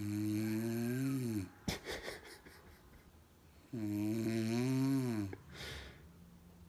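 Snoring: two long, pitched snores about three and a half seconds apart, each sliding down in pitch as it ends and followed by a short, noisy breath.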